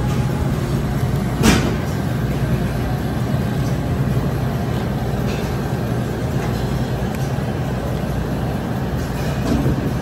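Steady low hum and noise of a supermarket, with one sharp knock about one and a half seconds in.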